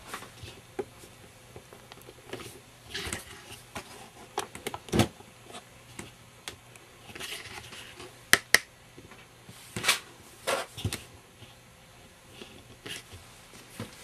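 Light handling noises: scattered soft taps, clicks and rustles, with two sharp clicks close together a little past the middle.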